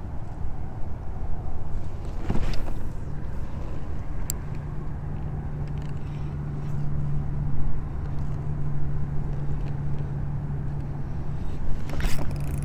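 Wind rumbling on the microphone, with a steady low hum that comes in about four seconds in and a few faint clicks.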